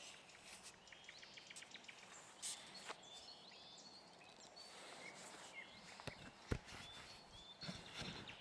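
Faint birdsong: scattered short chirps and calls, with a quick run of ticks about a second in. A few sharp clicks, and a single louder knock about six and a half seconds in.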